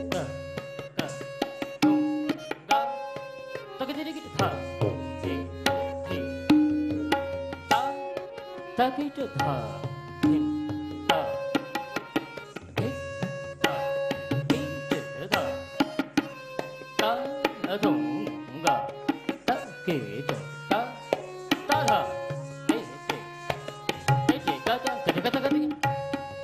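Tabla playing a dense stream of strokes, the bass drum's tone bending up and down, over a repeating melodic line held on long notes: the lehra that accompanies Kathak dance.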